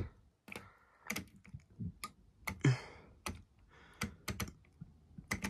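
A dozen or more irregular, sharp clicks and taps from handling a front-loading washing machine's controls as it is switched off.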